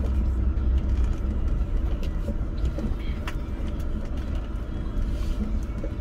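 Pickup truck driving slowly on a dirt road, heard from inside the cab: a steady low rumble of engine and tyres, with a few light knocks and rattles from bumps.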